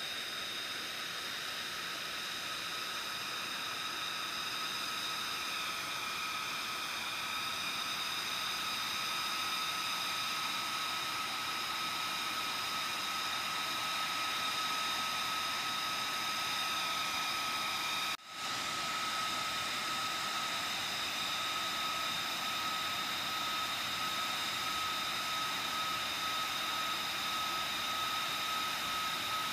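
Lockheed Martin F-35A Lightning II's single Pratt & Whitney F135 turbofan running at low taxi power: a steady, high-pitched jet whine over a hiss, with one tone in it sagging slightly twice. The sound cuts out for an instant about two-thirds of the way through, then carries on the same.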